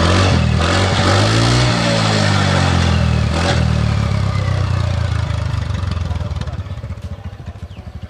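TVS Ntorq 125 scooter's single-cylinder four-stroke engine heard at the exhaust. It is revved up and back down over the first few seconds, then runs steadily and slowly gets quieter.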